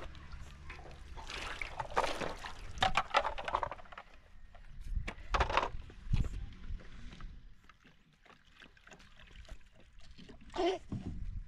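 Water sloshing and splashing in a large metal washbasin as clothes are washed by hand, in short irregular bursts.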